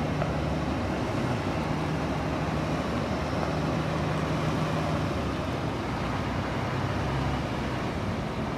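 1997 Mack RD690S concrete mixer truck's diesel engine running steadily as the truck drives slowly and turns.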